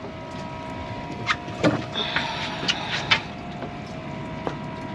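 Steady hum of a fishing boat's machinery with constant tones, broken by a few short sharp clicks and knocks as a large striped bass is handled on deck and clipped onto a lip-grip scale.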